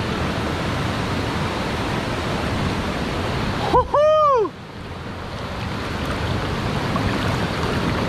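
Fast river running high after heavy rain, a steady rush of water, with a man's short loud shout about four seconds in.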